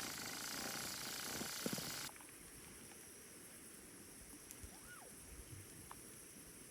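Steady rush of river water that cuts off abruptly about two seconds in, leaving quieter outdoor ambience with one faint rising-and-falling whistle.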